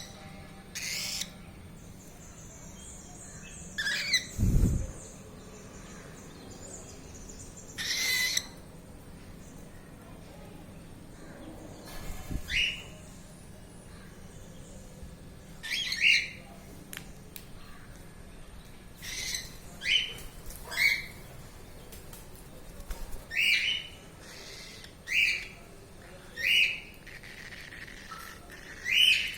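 A bird giving short, sharp calls, each one sliding down in pitch, repeated about fourteen times at uneven gaps and more often in the second half.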